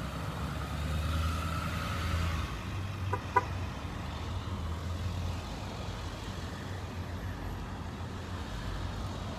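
Cars and trucks driving slowly past, with a low engine hum that is loudest for the first five seconds and then eases. Two short beeps about three seconds in.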